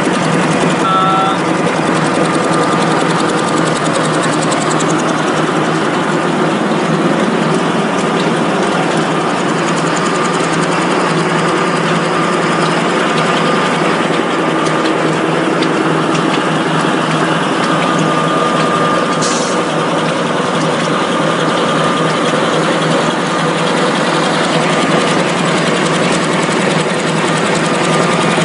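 Eight-line V-fold facial tissue interfolding machine running steadily: a continuous, dense mechanical noise with a faint steady tone above it.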